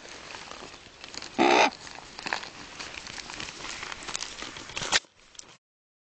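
A crow gives one short, loud, harsh caw about a second and a half in, among scattered light clicks and scuffs on the ground. The sound cuts off suddenly near the end.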